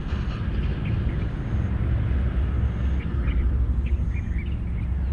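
Steady, fairly loud low rumble of an open-air field recording, with a few short bird chirps, mostly in the second half.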